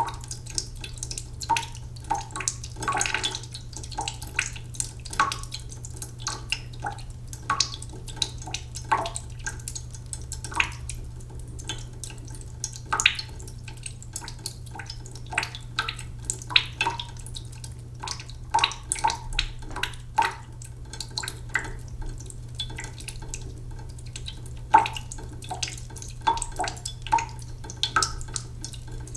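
Cooking pot filling slowly from a sink tap: irregular drips and small splashes into the water in the pot, several a second, some with a short ringing pitch, over a steady low hum.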